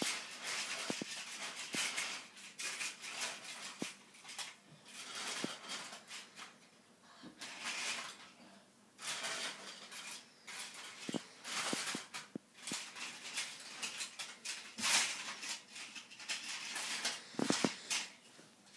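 Toy trains and wooden track pieces clacking and rattling in irregular bursts as they are handled and pushed along the track.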